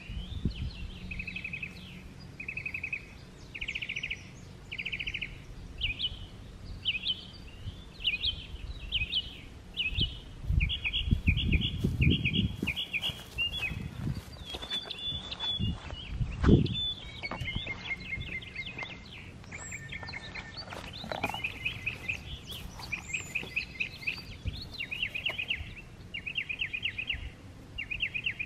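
Songbirds singing short, repeated trilled phrases, about one a second. From about ten seconds in, low thuds and rustling from footsteps passing close to the microphone, with one loud thump a little past halfway.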